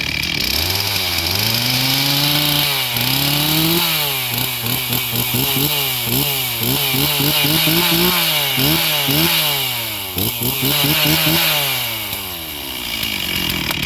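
Cold two-stroke chainsaw engine being revved: its pitch climbs over the first few seconds, then rises and falls in quick throttle blips about once a second, and drops back toward idle near the end.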